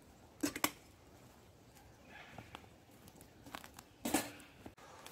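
A few sharp clicks and knocks from gear being handled, a pair about half a second in and a louder one about four seconds in, with faint rustling between.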